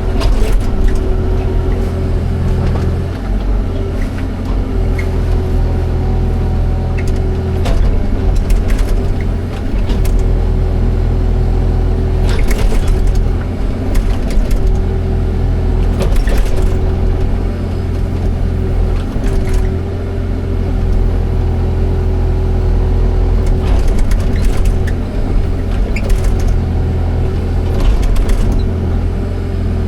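Excavator's diesel engine running steadily with a steady whine over it, and scattered sharp clanks and knocks from the machine at work.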